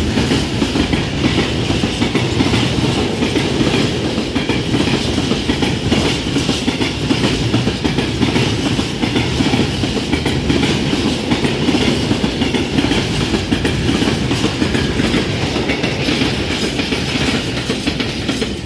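Freight train of rail tank wagons passing at speed close by, a loud, steady rush of rolling noise with wheels clattering over the rail joints.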